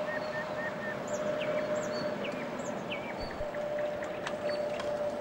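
Small birds chirping and singing, with short whistled notes, over a steady tone and a constant background rush.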